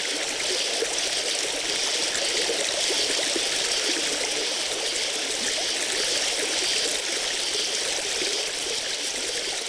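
A river carrying drifting ice floes, its water flowing with a steady rush.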